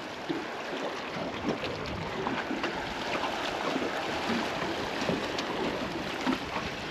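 Water lapping against the hull of a small boat, an even wash with many small irregular slaps and splashes.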